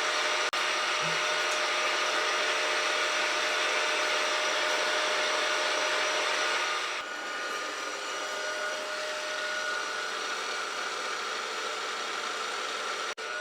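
Milling machine spindle running steadily with a whine, an engraving cutter scribing a scale line into the metal part. The high hiss eases off about halfway through while the motor tone carries on.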